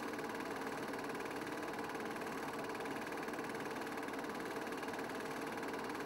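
Steady mechanical running hum, even and unchanging throughout, with no rise or fall in pitch or loudness.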